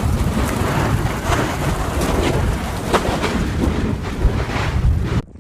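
Volcanic eruption rumbling, with wind buffeting the microphone and scattered sharp cracks; the sound cuts off suddenly near the end.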